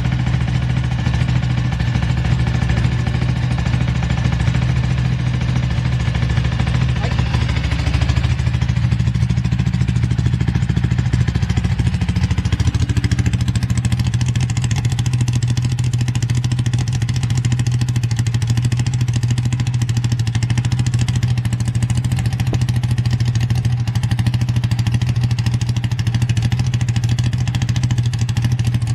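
Ducati 750 Paso's 90-degree V-twin engine idling steadily, an even low running note that holds without hunting. It is the stable idle with no abnormal noises that the seller claims for the engine.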